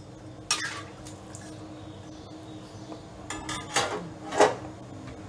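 Metal spatula stirring and scraping in a wok of shrimp in thin oyster-sauce broth, with a few sharp clinks of metal on the wok, one about half a second in and several between three and four and a half seconds in.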